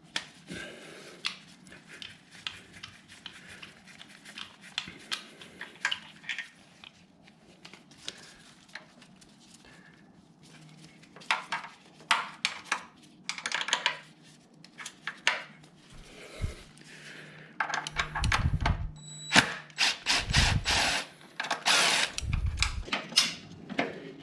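Metal tools working on motorcycle fasteners: scattered clicks, taps and scrapes, then three short bursts of a power tool, about a second each, in the last six seconds.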